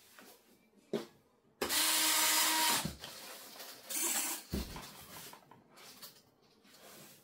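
A foam RC jet airframe is handled and turned over on a padded cradle. There is a click, then about a second and a half in a loud rough rubbing of foam and plastic with a steady squeak running through it. Around four seconds in comes a shorter rub, then a low thump as the model is set down.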